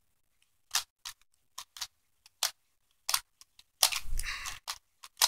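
Plastic clicks of a 4x4 Rubik's cube's layers being turned by hand, a dozen or so irregular snaps, with a longer rattling clatter of several quick turns about four seconds in.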